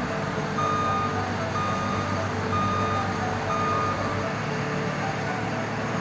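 New Holland 90.90 combine harvesters running steadily at work, with an electronic warning beeper sounding four times, about once a second, starting about half a second in.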